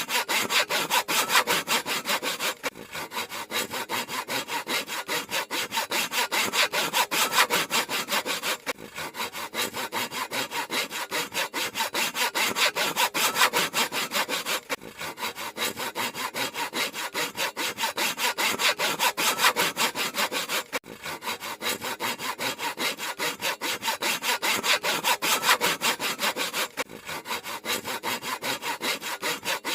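Handsaw cutting through wood in quick, steady back-and-forth strokes, each stroke a rasp of the teeth, with a brief pause about every six seconds.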